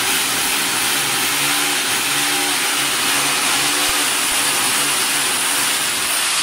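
Corded electric drill running steadily at full speed, boring a hole into the base of a wall.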